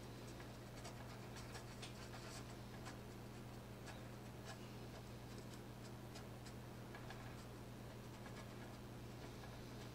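Faint, irregular scratchy ticks of a deerfoot stippler brush dabbing and smearing thinned weathering enamel onto a plastic model's deck, over a steady low hum.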